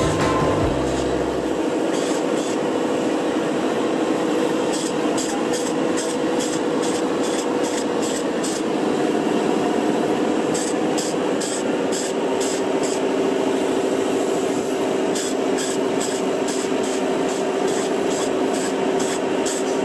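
Spray-foam gun hissing in quick repeated bursts as closed-cell polyurethane foam is sprayed, over the steady hum of the foam machine. The bursts come in clusters, several a second.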